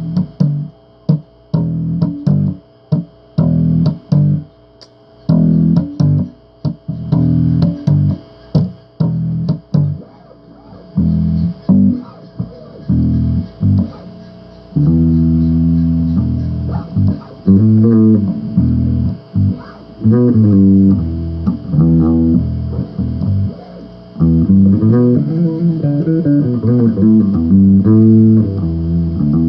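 Bass guitar played solo, riffing. Short plucked low notes with brief gaps between them give way about halfway through to longer held notes and quick runs up and down the neck.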